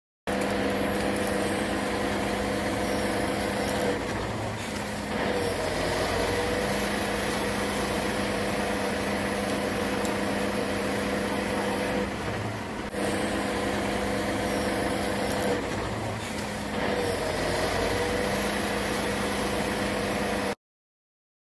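Heavy fire-brigade crane truck's diesel engine running steadily under load as it winches the overturned LPG tanker upright, its pitch dipping and recovering briefly a couple of times.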